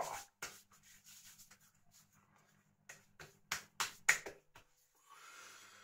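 Hands slapping and patting an alcohol aftershave splash onto the face and neck: a loud slap with a short cry at the start, a few light pats, then a quick run of sharp slaps about three to four seconds in. A soft breath near the end.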